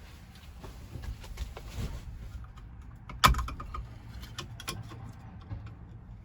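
Scattered clicks and rustles of handling inside a vehicle, with one sharp knock a little over three seconds in.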